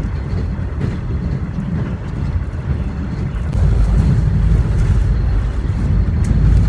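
Cabin running noise of a JNR express-type electric train car (KuHa 455): a steady low rumble of wheels and running gear that grows louder about three and a half seconds in.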